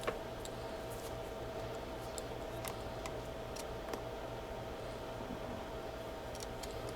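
A few faint, sharp ticks and light taps of hands and tools working at a circuit board, over a steady low electrical hum.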